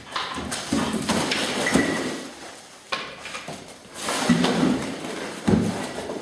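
Dog searching with its nose in a bucket and a plastic bag of bottles: rustling plastic with repeated knocks and clatters as things are pushed about.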